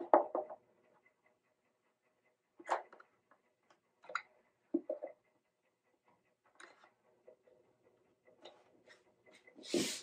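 Small clamps being fitted and adjusted inside an open 1940s Harmony archtop guitar body for cleat repair: scattered knocks, clicks and rubs of clamp parts against the wood, with a longer, louder scraping rustle near the end. A faint steady hum runs underneath.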